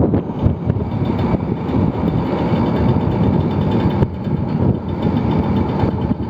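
Vespa scooter's engine running steadily at riding speed, heard with continuous road noise.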